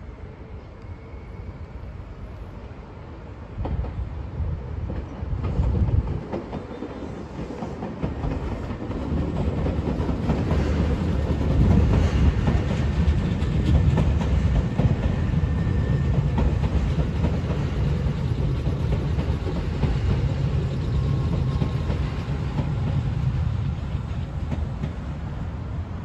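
Nankai Main Line electric commuter train running along the tracks, a broad rumble with dense wheel ticks that swells about eight seconds in, holds loud for over ten seconds and fades near the end. Before it, a short low rumble comes about four seconds in.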